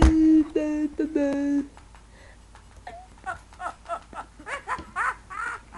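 A high, electronically altered voice standing in for the dog: about a second and a half of flat, held notes that jump abruptly in pitch, then, after a short gap, a quick run of short high squeaks, each dropping in pitch.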